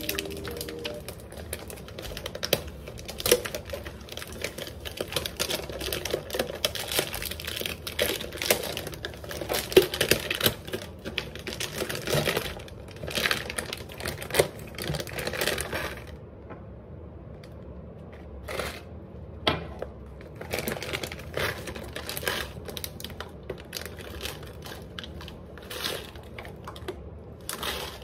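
A plastic bag crinkling while small dry pieces are poured from it into a jar, a dense run of clicks and rattles that thins out to scattered clicks about two-thirds of the way through.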